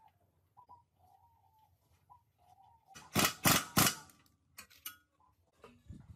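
Faint bird calls, then a run of about four loud strokes a little after halfway, followed by a few lighter clicks.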